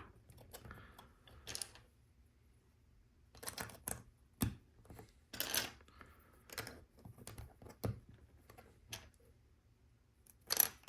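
Plastic LEGO pieces clicking and clattering as they are handled and pressed onto a build, in scattered irregular clicks with quiet gaps between them.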